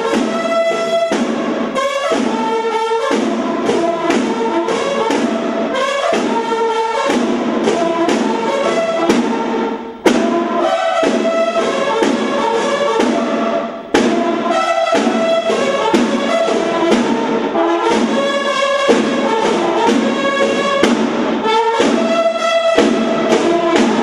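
Brass band music led by trumpets, playing a steady melody with two short breaks, about ten and fourteen seconds in.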